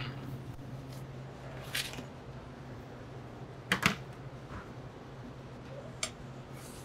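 A few light clicks of a metal fork against a plate while a forkful of stuffed sweet potato is taken, the loudest a quick double click near the middle, over a steady low hum.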